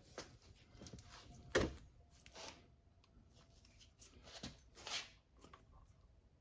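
Light clicks and knocks of small metal parts being handled on a partly stripped ATC90 engine, the sharpest click about one and a half seconds in and a few more about two-thirds of the way through.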